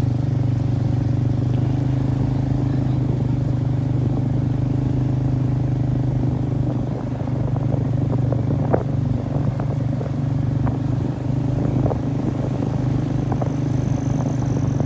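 Motorbike engine running steadily while riding. About halfway through the hum eases and scattered knocks and rattles follow, as the bike jolts over the rough, wet road.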